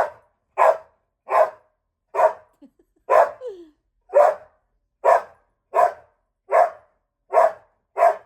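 Pet dog barking over and over in a steady rhythm, about eleven single barks, a little more than one a second.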